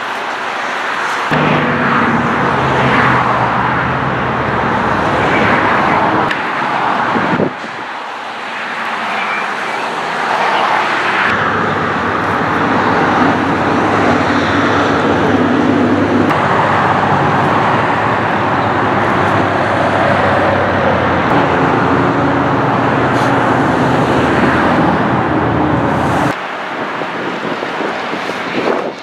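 Road traffic noise: a steady wash of passing vehicles with a low engine hum, which shifts abruptly in level several times.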